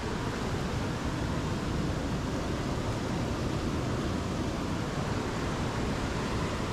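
Steady rush of whitewater from the river's rapids and drop, running high, with no breaks or separate knocks.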